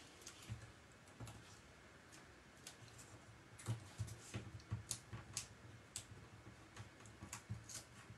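Faint, scattered clicks and taps of paper and card being handled: a small stamped paper cutout being fitted with foam tape pads and pressed down by hand, the taps coming more often from about three seconds in.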